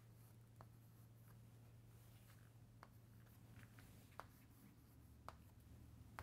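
Faint chalk on a chalkboard: light scratching and several small sharp taps as letters are written, the clearest taps about four, five and six seconds in. A steady low hum sits underneath.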